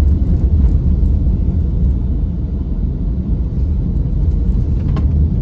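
Steady low rumble of a moving car heard from inside the cabin, with a single click about five seconds in.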